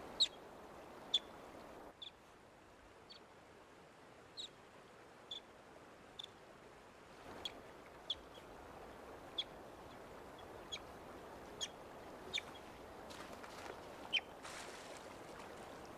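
Young North American river otter calling with short, high chirps about once a second: the calls of a youngster left behind by its family. A soft, steady hiss runs underneath.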